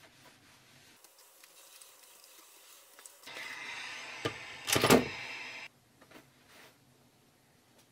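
Cordless steam iron on cotton boxer shorts: a steady hiss, about two and a half seconds long, that cuts off suddenly, with a louder short knock and rustle near its end. Before it, only faint handling of cloth on the ironing board.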